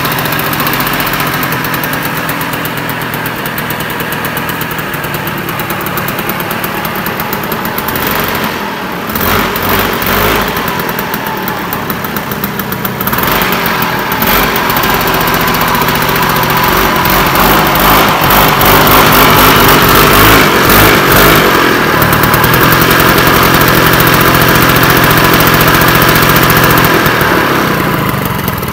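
Old Kinetic Honda scooter's small two-stroke engine running, first at idle, then revved higher through the middle for several seconds before easing back to a steady run.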